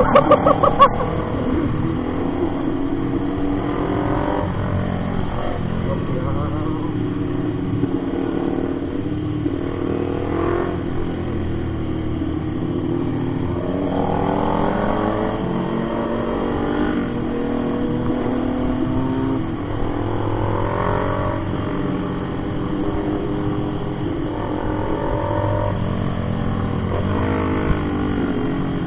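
Motorcycle engine running under way, its pitch climbing and dropping again and again as the rider accelerates and shifts gears.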